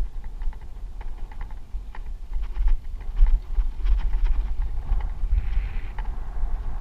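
Wind buffeting the microphone of a helmet camera on a moving mountain bike, a steady low rumble, with irregular clicks and rattles from the bike jolting and its tyres crunching over a rocky dirt trail.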